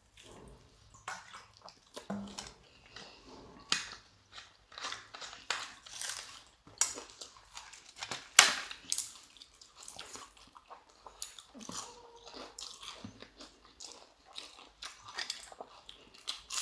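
Close-up eating sounds: irregular crisp crunches and chewing from bites of crunchy food, with one louder crunch a little past halfway.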